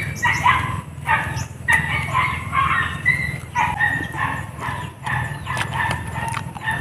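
A dog yelping and barking in quick, repeated short calls, over a steady low hum.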